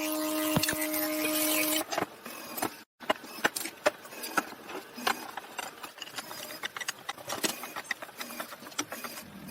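Woodworking sounds: an electric power tool runs with a steady hum for about two seconds and stops. After a brief break comes a run of irregular light knocks and clicks of wood being worked and handled.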